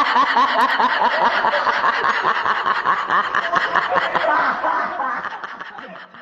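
Laughter, a steady run of quick repeated 'ha-ha' chuckles, fading out about six seconds in.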